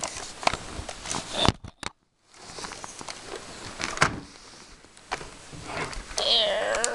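Plastic clicks, knocks and rattles of a Nerf Recon CS-6 blaster being handled while its stock release is worked one-handed, with the loudest click about four seconds in. The sound briefly cuts out entirely about a second and a half in.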